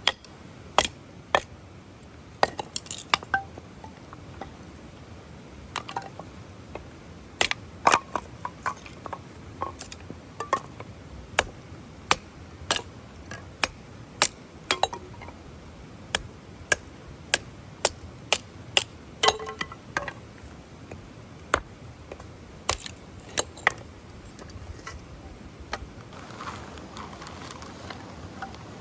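Irregular sharp clinks and taps of hard objects, roughly one a second, over a faint steady hiss of rain.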